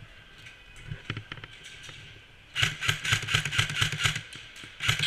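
Airsoft gun firing full-auto: a fast, even string of shots starting about two and a half seconds in and lasting about two seconds, with a second burst starting right at the end. Before it, only faint scattered pops.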